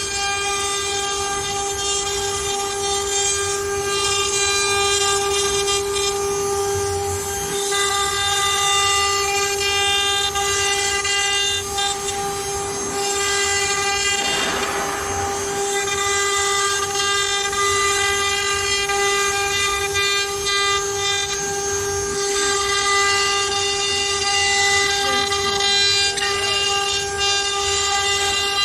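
CNC router spindle running at speed with a steady whine while the bit engraves MDF, with a rushing cutting noise that swells and fades, loudest about halfway through.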